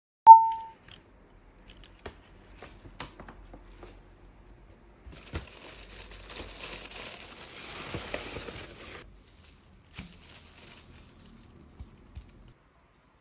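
A short, loud single-pitched beep at the start, then paper and plastic wrapping crinkling and rustling for a few seconds as potted plants are handled and unwrapped, with light taps and clicks around it.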